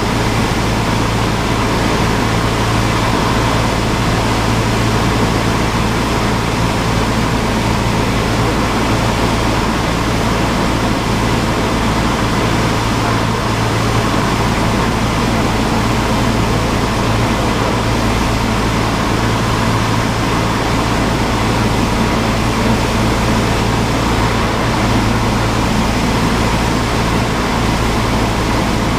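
Cessna 172's piston engine and propeller droning steadily, heard inside the cockpit, with no change in power.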